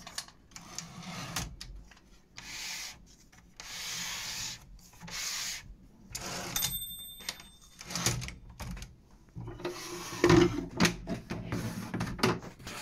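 Brother Deluxe 800T portable typewriter being handled: its carriage slides back and forth in a series of short rubbing, rasping runs, with a brief metallic ring about six and a half seconds in. Near the end come sharper knocks and clicks as its plastic carrying case is handled.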